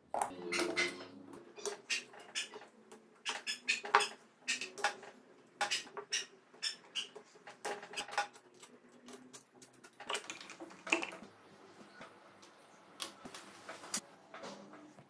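Hand tools and small metal engine parts clinking and tapping against each other, irregularly, while a Honda CBR250 (MC22) engine is taken apart.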